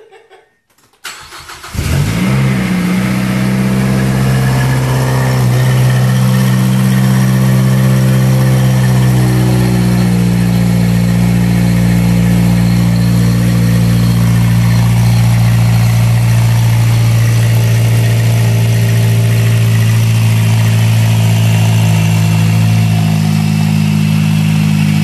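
Mazdaspeed 6's turbocharged 2.3-litre four-cylinder, newly fitted with a Garrett GTX3076 turbo, cranking briefly and catching about two seconds in on its first start after the install. It then runs steadily, and its idle drops a step near the end.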